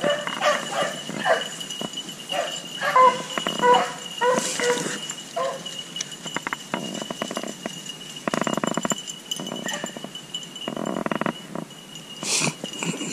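Hunting beagles baying, a quick run of short high yelps through the first half, the cry of hounds on a rabbit's scent. After that come several bursts of rustling noise.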